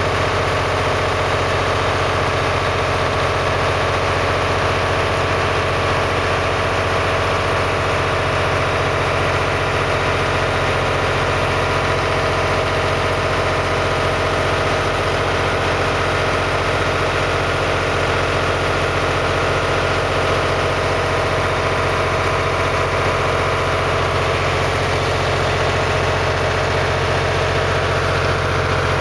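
Boat engine running steadily, heard on board the moving boat: a constant low hum that does not change.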